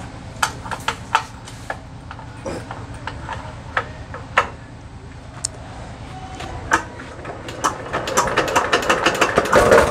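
Metal clicks and knocks from handling a Jiang Dong JD180 single-cylinder 8 hp diesel engine. About eight seconds in, the engine is cranked, its strokes quickening, and it catches and starts running right at the end.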